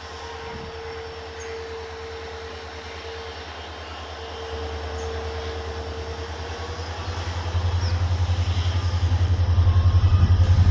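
EMD WDP-4 diesel-electric locomotive accelerating a passenger train: its two-stroke V16 diesel engine is working, a deep rapid throbbing exhaust beat that grows louder in steps and is loudest near the end. A thin steady whine runs alongside and fades out about two-thirds of the way through.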